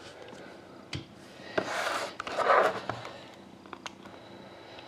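Trading cards and cardboard packaging being handled: a few light taps and clicks, with two short rustling, sliding swishes in the middle.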